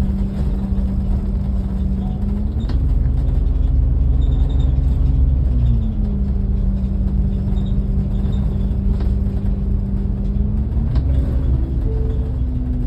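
Motor vehicle driving on the road: a steady low engine and road rumble with an engine hum that rises in pitch about two and a half seconds in, drops back about six seconds in, and rises again near the end.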